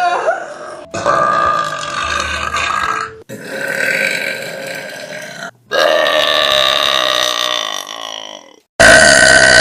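A run of loud, drawn-out burps from young women, one after another with abrupt cuts between them: about four belches, each two to three seconds long.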